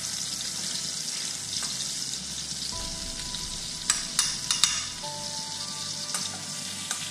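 Beef steak searing in butter and olive oil in a stainless steel frying pan, a steady sizzle, with a few sharp clicks about four seconds in.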